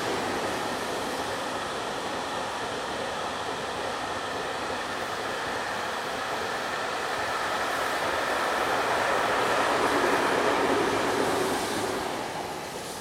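A high-speed electric freight train of container cars (JR Freight M250 series) passing through at speed: a steady rumble and rush of wheels on rail, growing louder to about ten seconds in, then fading away about twelve seconds in as the end of the train goes by.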